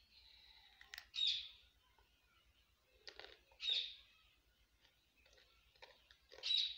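A bird chirping three times, short high calls a few seconds apart, over faint crunching of a crisp snack being chewed.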